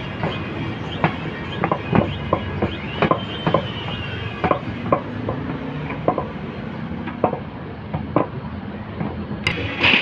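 Sharp, irregular knocks and clatter, about one a second, from a motorcycle alloy wheel and tyre being pressed and rocked on hard paving to break the tyre bead from the rim.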